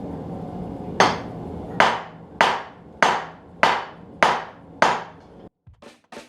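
Hammer blows on hot 1095 steel at the anvil, seven ringing strikes about every half second or so, starting to draw out a knife's tang. A steady rushing noise underneath cuts off abruptly just after the last strike.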